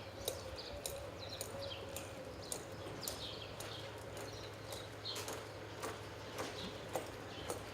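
Hoofbeats of a reining horse working its pattern in the arena: irregular sharp clicks and thuds, about two or three a second, over a steady low hum.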